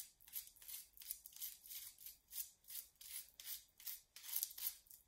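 Small wire brush scrubbing back and forth in quick, faint scratchy strokes, about two or three a second, raking loose plaster and residue out of the breaks in a broken plaster sculpture to clear the dust before gluing.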